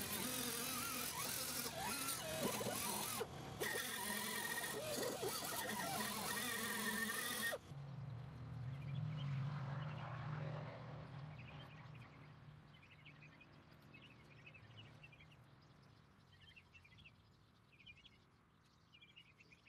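Air-powered wire wheel buzzing against the steel headlight cup of a 1978 VW Bus nose, its pitch wavering as it bears on the metal, cutting off abruptly about seven and a half seconds in. After that it is much quieter: a low hum for a few seconds, then faint outdoor chirping.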